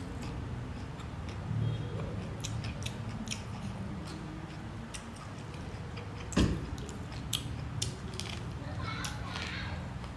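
Close-up eating sounds: chewing with a run of sharp mouth clicks and smacks, and a louder knock about six seconds in.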